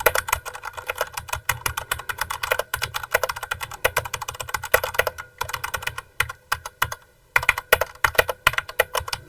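Fast typing on a mechanical keyboard with Cherry MX Brown switches (tactile, non-clicking): a dense run of keystrokes with a short pause about seven seconds in.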